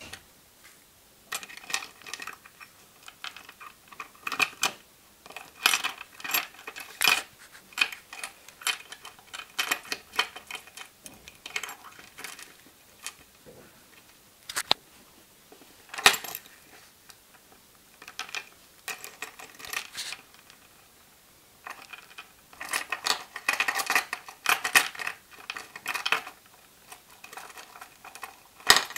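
Baby lovebird sneezing: runs of quick, tiny, sharp sneezes and clicks in clusters, with a few single louder sneezes, the loudest about halfway through.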